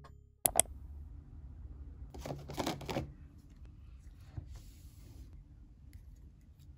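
Hands handling plastic skincare containers on a desk: two sharp clicks about half a second in, then about a second of rustling and handling noise, then faint light handling.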